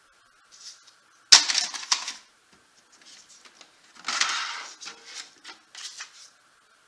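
A small metal timing chain clinking and rattling as it is handled and set down into a plastic parts tray. A sharp click comes about a second in, more clatter follows around four seconds, and there are a few lighter clicks after that.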